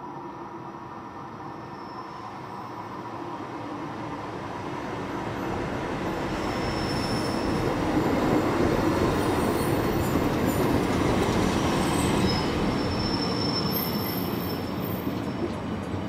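Commuter train arriving, heard from trackside: its rumble grows steadily louder over the first eight seconds or so and then eases a little. Thin high-pitched squeals from the wheels and brakes come and go through the loudest part as it slows.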